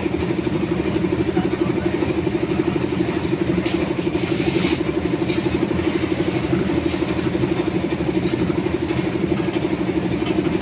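An engine running steadily with an even, rapid chugging beat. A few light knocks sound over it in the middle.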